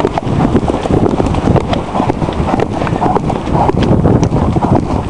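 Hoofbeats of a coloured cob cantering on a grass and dirt track, a fast, uneven run of thuds, with wind rushing over the microphone.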